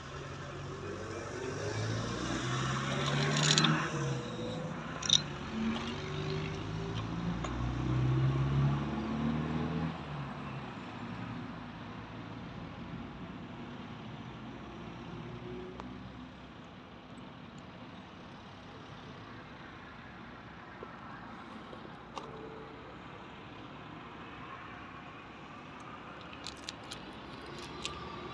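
Vauxhall Astra engine running, louder and changing in pitch over the first ten seconds, then settling to a steadier, quieter run. A few sharp clicks are heard early on and again near the end.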